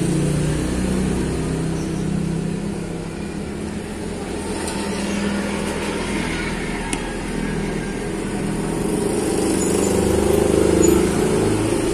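A running engine: a steady low hum whose pitch drifts, growing a little louder near the end.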